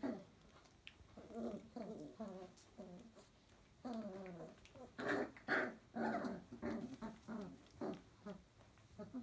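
Four-week-old flat-coated retriever puppies growling as they play-fight, a string of short, fairly high-pitched growls and whines, busiest and loudest in the middle.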